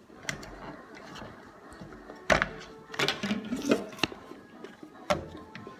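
Faint music with about six sharp taps and knocks of hard plastic pieces of a Play-Doh playset being handled while Play-Doh is pressed into them.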